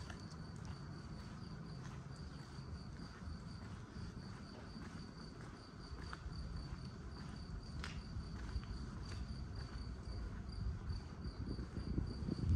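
Insect, likely a cricket, chirping steadily in a high, evenly repeated note, over a low outdoor rumble with a few faint clicks.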